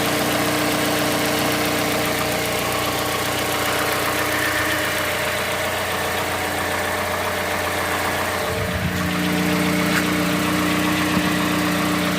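Mazda CX-5's Skyactiv-G 2.5 four-cylinder petrol engine idling during cold-start warm-up. Near the end the engine note changes and the cold knock sets in, which the owner asks about as possibly abnormal.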